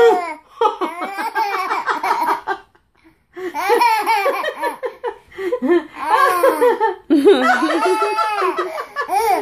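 A toddler laughing hard in repeated bouts of belly laughter, with a short pause about three seconds in.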